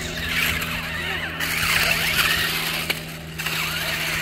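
Small electric motors and gears of a toy remote-control stunt car whirring as it drives, the whine rising and falling in pitch, with a sharp click about three seconds in.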